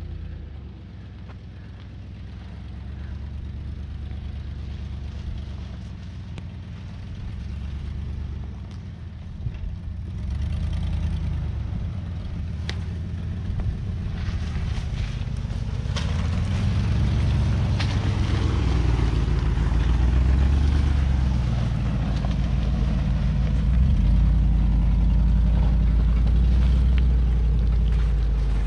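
Land Rover Discovery II engine running at low speed while the vehicle crawls up a snowy, rutted trail, growing steadily louder as it draws near and passes. There are scattered crackles from tyres on snow and ice about halfway through.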